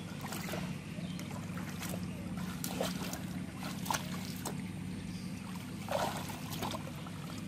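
Water trickling with scattered small splashes, over a steady low hum.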